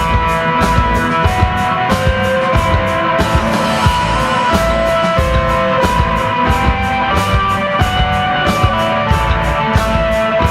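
Instrumental desert rock played live by a trio of electric guitar, bass and drums. Held, sustained guitar notes ring over a low bass line, with drums and cymbals keeping a steady beat.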